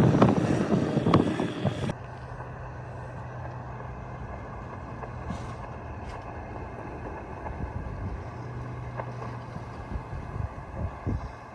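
Wind buffeting the microphone for about two seconds, then cutting off suddenly, leaving a quieter steady low hum with faint hiss.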